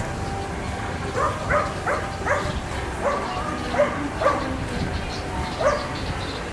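A dog barking, about eight short barks over a few seconds, over steady outdoor background noise.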